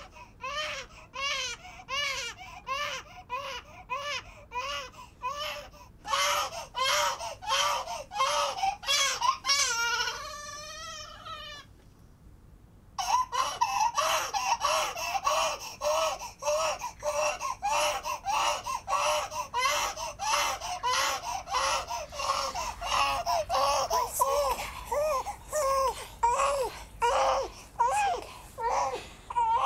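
A young baby crying in short repeated wails, about two a second. About ten seconds in the cry turns wavering, drops briefly to a lull, then comes back louder and more insistent.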